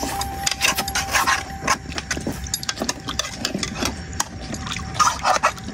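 Cooking utensils knocking and scraping against a pot in a run of irregular clicks, with a thin steady high tone running underneath.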